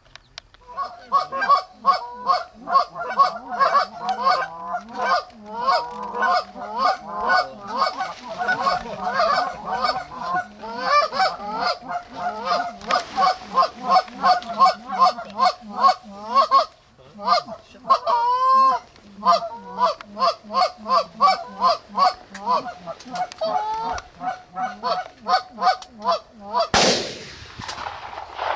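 Goose honking and clucking in a fast, unbroken run of calls, loud and close. Near the end comes a single loud shotgun blast with a short echo.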